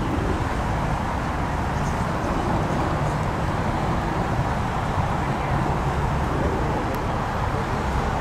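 Steady outdoor background noise: a low rumble with a broad hiss over it and faint voices, no single event standing out.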